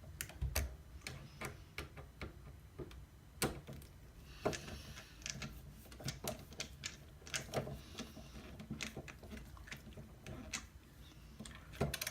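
Snap-on ratcheting screwdriver clicking irregularly as a screw is turned in by hand.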